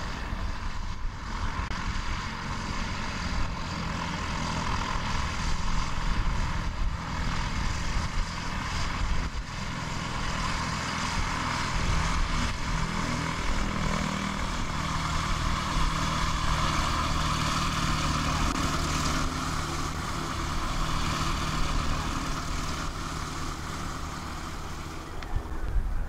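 Piper PA-28 light aircraft's piston engine and propeller running steadily at low power as it taxis on grass.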